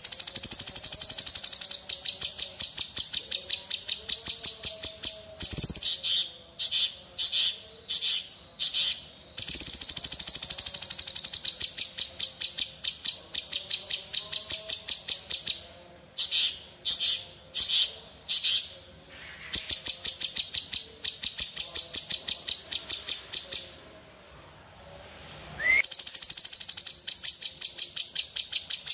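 Blue-winged leafbird (cucak cungkok) singing in full voice: long runs of rapid, high repeated notes, several a second, broken by short gaps. There is a longer pause about three-quarters of the way through, then the song resumes with a rising note.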